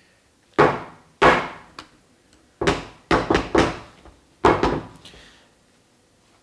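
Hard knocks of a heavy weightlifting shoe's rigid heel and sole against a hard surface. There are about eight loud thuds in three groups: two, then four, then two.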